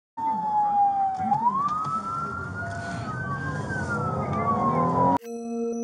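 An emergency vehicle's siren wailing in a slow fall and rise, heard from inside a moving car over its road rumble. It cuts off abruptly about five seconds in, replaced by steady held music tones.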